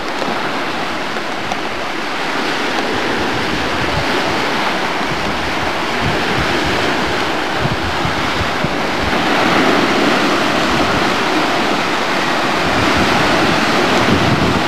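Wind buffeting the camcorder microphone over the rush of the open sea: a steady loud roar of noise with irregular low thuds, growing a little louder about two thirds of the way in.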